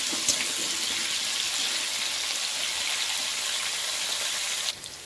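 Potatoes sizzling in hot oil in a metal kadai, a steady hiss, with a clink of the steel spatula near the start. The sizzle cuts off suddenly near the end.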